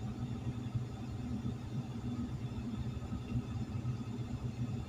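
Mobile crane's diesel engine running steadily, a low even hum, while it holds a suspended load.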